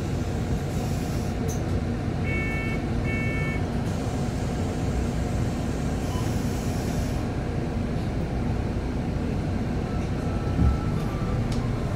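Inside a city bus standing at a stop: a steady low rumble of the idling engine and cabin. Two short electronic beeps sound about two seconds in, and brief hisses come about a second in and again about six seconds in.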